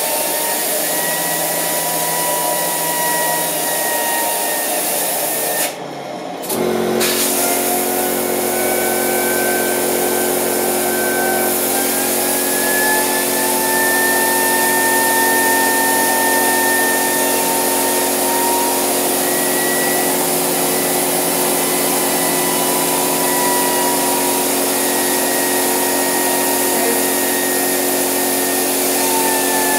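Homemade jet engine's turbine driven by compressed air with gas burning in its combustion chamber: a steady rush of air with a whine that drifts slowly up and down in pitch, the engine not running on its own. After a brief dip about six seconds in, a steady low hum joins.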